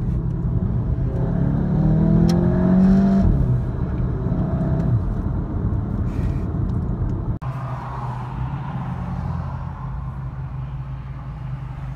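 Car engine heard from inside the cabin, accelerating with its pitch rising for about three seconds, then easing back and running on steadily. About seven seconds in, the sound cuts off suddenly and gives way to a lower, steady engine and road hum.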